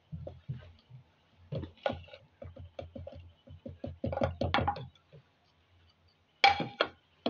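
Garlic cloves tipped from a plate into a wooden mortar, with a wooden pestle knocking against it: a run of short wooden knocks and clatter, several a second, then a louder knock near the end.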